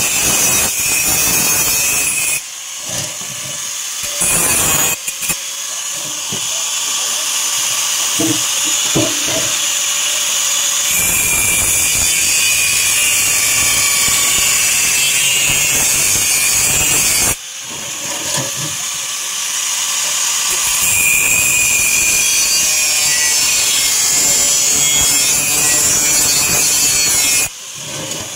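A power tool cutting a sheet-metal cable tray: a loud, steady, high-pitched cutting noise in three long runs, broken by short stops about two seconds in and about two-thirds of the way through, and cutting off near the end.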